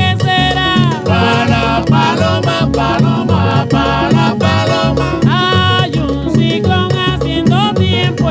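Salsa record playing: a steady beat of bass and percussion under a lead melody of held, sliding notes.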